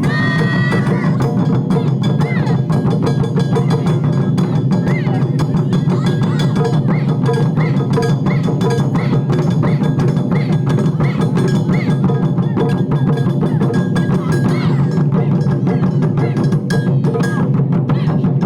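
Taiko ensemble drumming: rapid, steady strikes on Japanese drums, loud throughout, with a higher-pitched note recurring about twice a second over the drumming.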